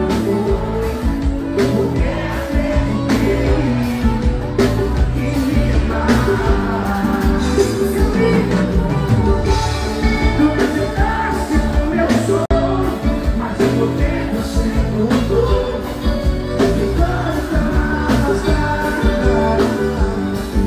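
A live forró band plays through the stage PA while a male lead singer sings into a handheld microphone, over a steady drum beat. The sound drops out for an instant about twelve seconds in.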